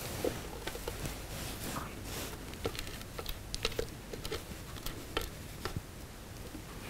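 Plastic spatula scraping and knocking inside a stainless steel Thermomix mixing bowl while thick marshmallow mixture is worked out of it, giving scattered soft clicks and scrapes.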